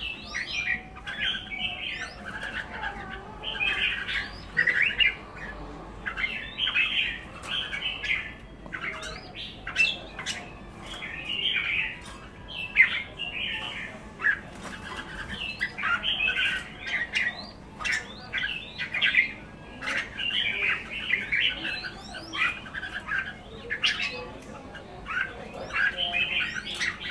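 Pied red-whiskered bulbuls calling in quick bursts of chattering, squawky notes, one burst after another every second or so, with a few sharp clicks between them.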